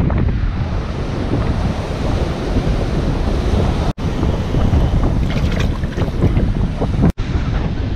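Wind buffeting the microphone over surf washing on the beach, a steady rushing noise. It cuts out for an instant twice, about halfway through and near the end.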